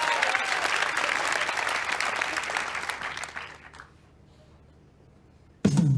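Audience applause that fades away after about four seconds, then a short lull before music starts suddenly near the end.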